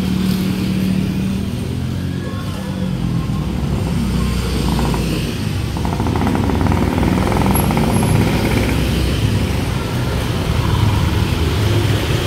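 Small motorcycle engines idling and pulling away in traffic, a steady low engine hum with some rattling in the middle.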